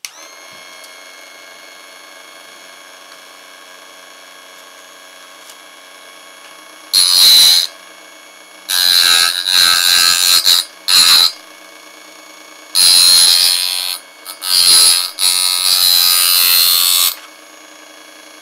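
A Parkside benchtop sharpening station is switched on with a click, and its small electric motor runs with a steady tone. From about seven to seventeen seconds in come several loud rasping grinds, each a few seconds or less, as a scissors blade is pressed against the spinning grinding wheel.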